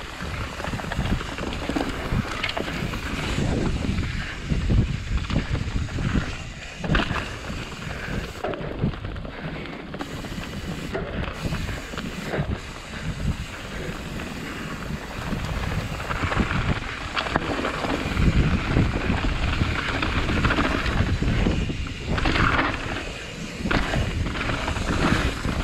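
Kona Process 153 mountain bike ridden down a rough dirt trail: wind rushing over the microphone, tyres running on dirt, and frequent knocks and rattles from the bike over bumps.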